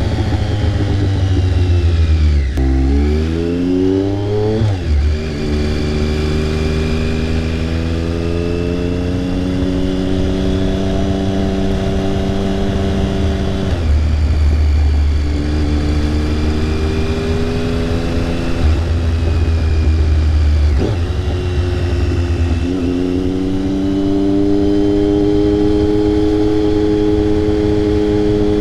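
Triumph Speed Triple 1050's inline three-cylinder engine through an SC Project S1 titanium slip-on exhaust, heard up close at the exhaust while riding. The engine pulls through the gears: pitch climbs steadily in each gear and drops at each shift, repeatedly, with brief off-throttle breaks between pulls.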